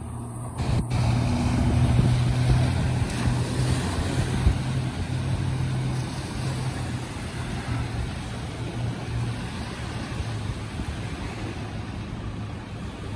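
Boat outboard motor running under power as the ski-boat heads out through the shallow surf, a steady low drone loudest about two seconds in and then slowly fading as it pulls away.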